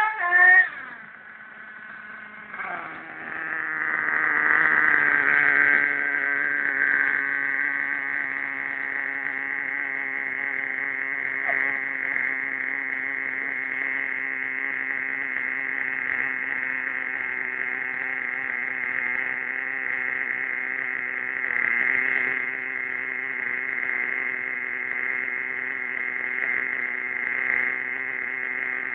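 The HPI Savage 25's .25-size nitro engine revs briefly with a rising pitch, then settles about two and a half seconds in to a steady idle.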